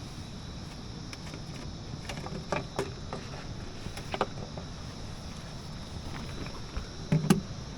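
Scattered light knocks and clicks of camping gear being handled, with a louder thump near the end, over a steady outdoor background.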